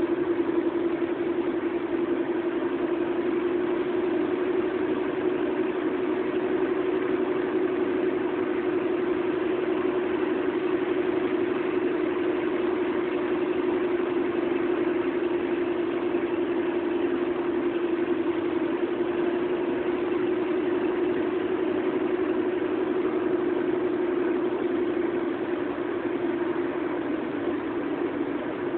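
Steady road and engine noise of a moving car heard from inside the cabin, with a constant droning tone and no change in speed.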